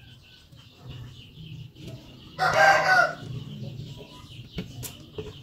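A rooster crows once, short and loud, about two and a half seconds in, over a steady fast high chirping in the background. Two sharp clicks come near the end.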